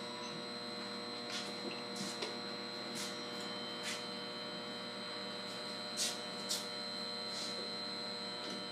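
Steady electrical hum from switchgear and power equipment, several pitches held together, with a few brief soft ticks and rustles scattered through.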